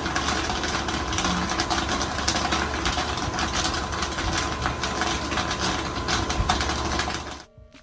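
Popcorn popping in a commercial popcorn kettle: a dense, rapid crackle of kernels over the machine's steady hum. It cuts off abruptly near the end.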